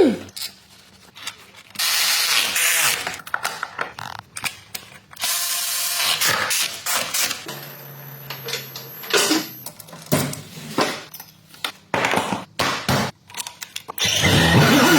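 Workshop tool noises: several short bursts of hiss mixed with scattered clicks and knocks of metal tools.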